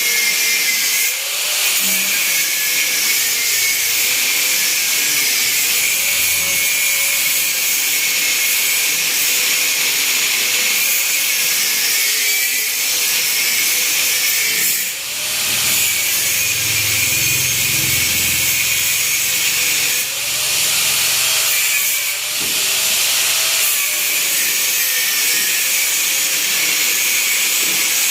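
A handheld power tool running continuously under load with a harsh hiss. Its motor pitch sags and recovers every few seconds, and it eases off briefly a few times, most clearly about fifteen seconds in.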